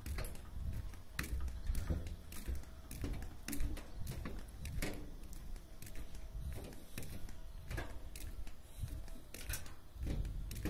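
Wind rumbling on a phone microphone, with irregular light clicks and knocks of footsteps as someone walks along a railway bridge walkway.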